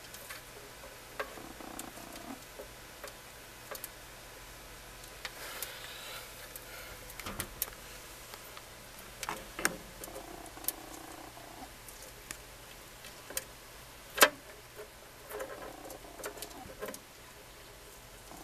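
Hermit crabs' shells and legs clicking and tapping against a clear container as they clamber over each other, irregular sharp clicks with one loud knock about three-quarters of the way through.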